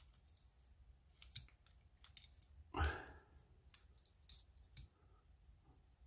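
Faint small metallic clicks and ticks of steel tweezers working the pins and springs out of an ERA oval pin-tumbler cylinder as it is taken apart, with one short louder burst of noise about three seconds in.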